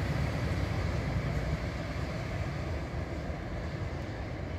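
CAF Urbos 3 tram running away along the rails, its rumbling running noise slowly fading as it recedes.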